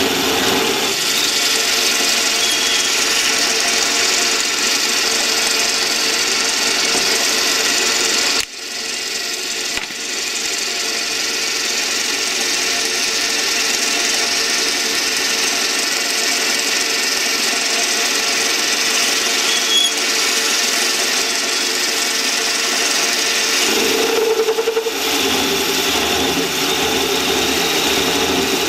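South Bend 8K metal lathe running while a parting tool cuts into the spinning workpiece: a steady machine hum with a high hiss. The sound drops for a moment about eight seconds in, then picks up again.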